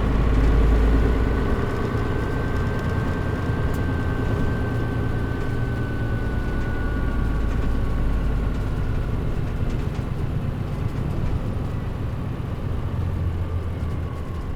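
Diesel engine of a Mitsubishi Fuso Aero Star city bus (KL-MP37JM) running, heard inside the cabin with the air conditioning off. A high whine holds and slowly falls in pitch over the first half, and the engine sound eases off toward the end.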